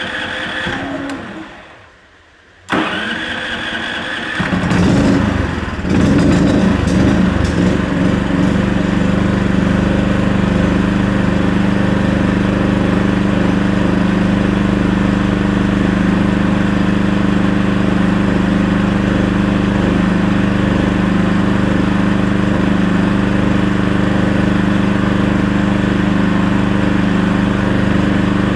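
Champion 5500 dual-fuel inverter generator being cranked twice on propane with the choke on. It catches about four to six seconds in and settles into a steady run.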